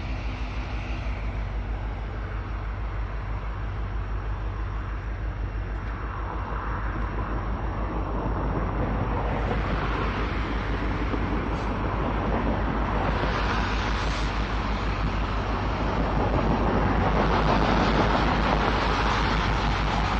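Norfolk Southern 1166, an EMD SD70ACe diesel locomotive, pulling a train slowly forward: a steady low engine throb with wheel and rail noise, growing louder as it approaches.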